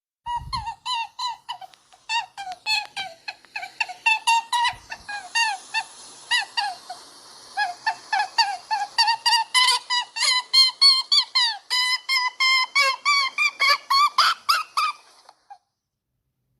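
A rabbit giving a long run of short, high-pitched squeaks, about three to four a second, each bending in pitch. The squeaks stop about a second before the end.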